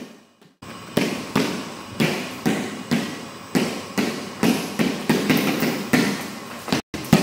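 Basketball being dribbled on a hardwood gym floor, about two bounces a second, each bounce echoing in the large hall. The bouncing begins just under a second in, after a brief silence.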